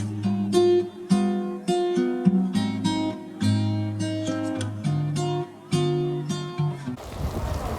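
Acoustic guitar background music, a run of single plucked notes and strums. About a second before the end it cuts off abruptly to a steady hiss of rain.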